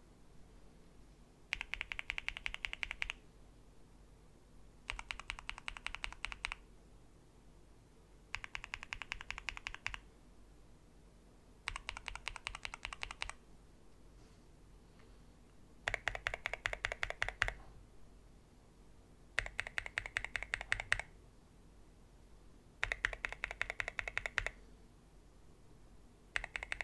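Mechanical keyboard being typed on in short bursts of rapid keystrokes, about a second and a half each, with pauses of about two seconds between them, as a test of how keycap materials (polycarbonate, ABS, PBT) sound. Eight bursts; the last four have a fuller, lower clack than the first four.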